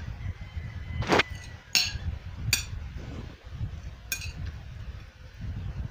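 Metal cutlery clinking against a dinner plate four times. The first clink, about a second in, is the loudest and rings briefly. A steady low rumble runs underneath.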